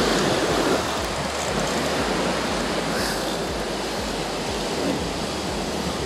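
Ocean surf and wind on the microphone: a steady rushing noise with a rough low rumble.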